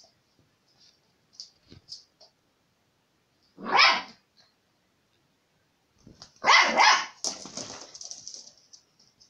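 Bedlington terrier puppy barking: one bark about four seconds in, then a quick run of about three barks around six to seven seconds in, trailing off. Faint scratches and clicks come before the first bark.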